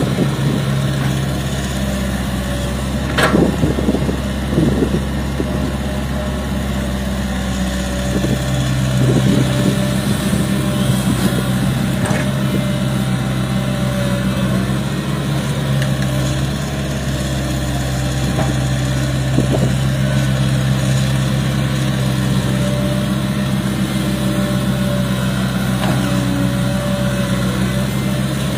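Diesel engine of a Hitachi hydraulic excavator running steadily. A sharp knock comes about three seconds in, and a few fainter clunks follow later.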